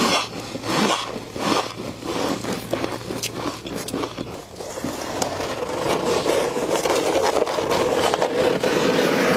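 Frost being scraped and crunched: a quick run of crisp crackling clicks, turning after about five seconds into a denser, steadier scraping crackle.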